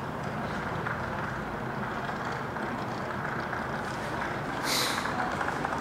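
Steady noise of an underground metro station, with a short hiss near the end.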